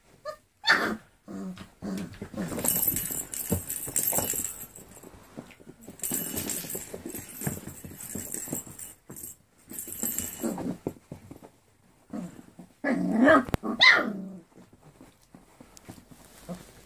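A litter of puppies play-fighting over toys, growling and yipping, with bursts of scuffling and rustling from the toys and blanket. A short sharp yip comes about a second in, and a louder wavering yelp or bark near the end.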